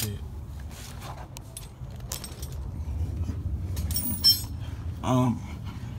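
Steel hand tools (wrenches and sockets) clinking against each other, with a few light clicks and one sharp, ringing metallic clink about four seconds in, over a low rumble of handling and movement.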